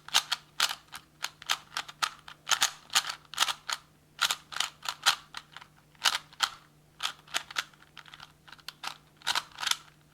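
Plastic Rubik's cube being turned quickly in a speedsolve: rapid clicking and clacking of the layers, in quick uneven runs of several turns a second.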